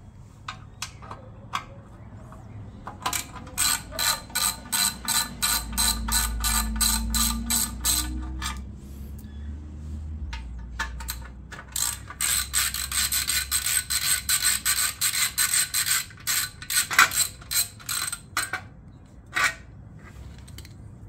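Ratchet wrench with a 4 mm hex bit clicking in two long runs of quick, even clicks, with a few single clicks between, as it loosens the bolts holding the heat shield on a motorcycle's catalytic converter.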